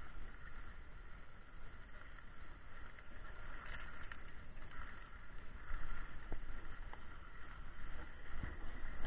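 Skis sliding and scraping over groomed snow on a downhill run, with wind rumbling on the body-worn camera's microphone.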